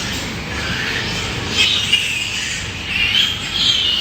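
Pigs squealing: short high-pitched squeals about one and a half seconds in and again near the end, over a steady background hiss.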